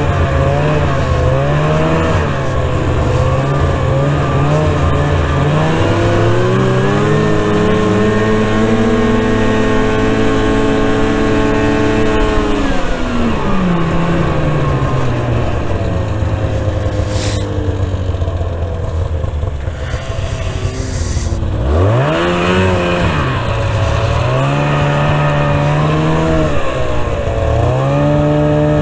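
Arctic Cat snowmobile engine under way, heard from the sled itself: its pitch climbs steadily for several seconds as the throttle is held open, holds, then falls back as the throttle is let off. About two-thirds through it revs up sharply, then rises and falls with the throttle.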